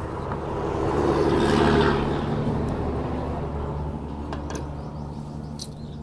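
A motor vehicle's engine passing by, a steady hum that swells for a couple of seconds and then slowly fades. A few light clicks come near the end.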